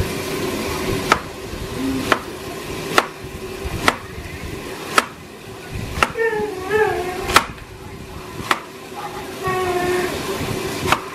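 Chef's knife chopping an onion on a plastic cutting board: about nine sharp knocks, roughly one a second, with a longer pause near the end.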